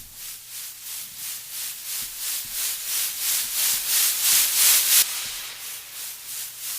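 White-noise sweep effect from the Sylenth1 software synthesizer, the kind of riser used in EDM: a hiss pulsing in an even rhythm that grows brighter and louder for about five seconds, then drops suddenly and carries on quieter.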